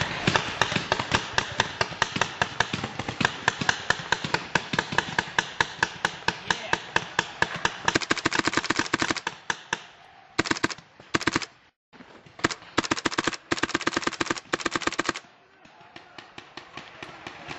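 Paintball markers firing in rapid strings of many shots a second, nearly unbroken for about ten seconds. The firing then comes in separate bursts with short breaks, and fades to fainter, scattered shots near the end.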